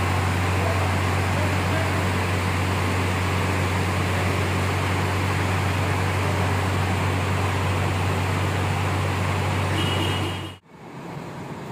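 Steady low hum of a bus's diesel engine idling, with an even hiss over it. It cuts off abruptly about ten and a half seconds in, leaving a quieter background.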